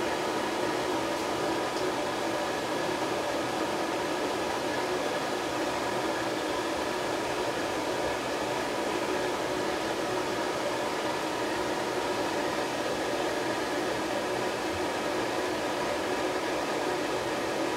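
Hair dryer running steadily while drying a puppy's fur: an even rush of air with a steady motor whine.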